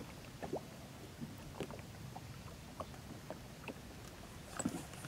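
Water lapping and lightly splashing against the side of a small fishing boat, with scattered soft ticks and drips at irregular intervals.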